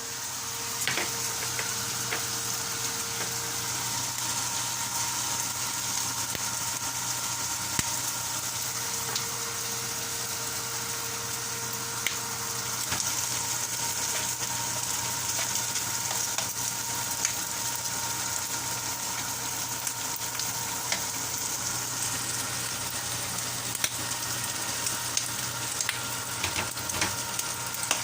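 Food sizzling steadily in a hot pan, with scattered sharp clicks of a utensil stirring against the pan.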